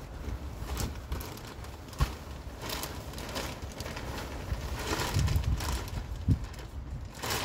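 Peat-based potting mix pouring out of a plastic bag onto a tarp, with the bag crinkling and rustling and soil landing in soft thuds, heaviest about five to six seconds in. A low wind rumble on the microphone runs underneath.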